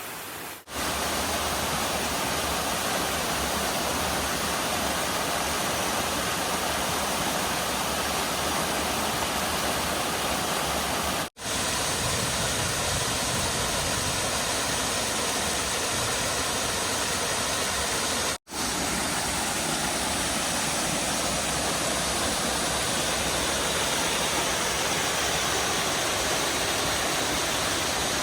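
Waterfall water rushing and splashing in a steady, even roar that cuts out for an instant three times.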